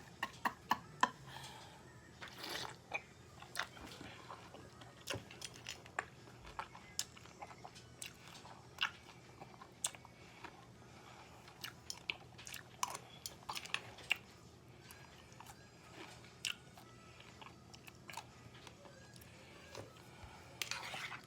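A person chewing a mouthful of fresh fruit in coconut water, close to the microphone: wet bites and chews in short irregular clicks, with spoon-on-bowl taps among them.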